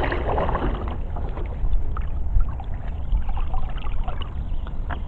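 Canoe paddling on a calm river: small trickles and drips of water from the paddle and around the hull, over a steady low rumble.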